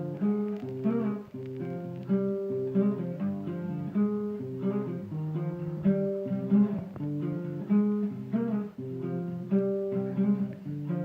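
Acoustic guitar playing a steady, repeating chord pattern.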